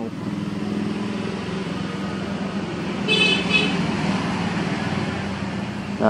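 Street traffic: a motor vehicle engine running steadily, with a short, high horn toot about three seconds in.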